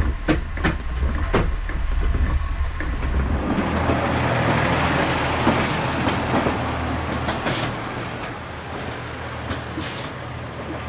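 Class 144 Pacer diesel railcar heard from its cab: a low engine hum with a few sharp clicks from the wheels on the track. About three and a half seconds in, the sound switches to the Pacer standing with its diesel engine idling, a rushing hiss and then short sharp hisses of air from its brakes.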